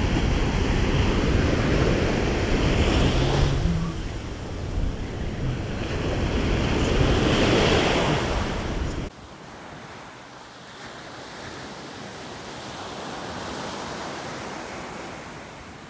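Small waves breaking on a sandy beach, with wind buffeting the microphone; the wash swells twice, a few seconds apart. About nine seconds in the sound drops suddenly to quieter, steadier surf.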